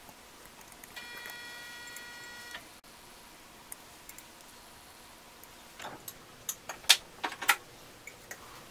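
A steel palette knife clicking and scraping against the canvas: a quick cluster of sharp clicks about six to seven and a half seconds in. Earlier, about a second in, a steady high tone sounds for about a second and a half.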